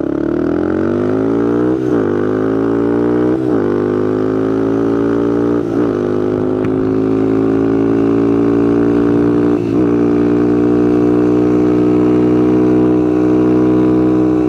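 Motorcycle engine accelerating away through the gears: the pitch rises in each gear, with four brief dips at the upshifts over the first ten seconds, then holds steady at cruising speed.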